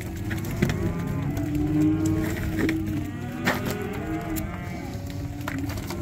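Penned steers bawling, several calls overlapping without a break, with a few sharp knocks scattered among them.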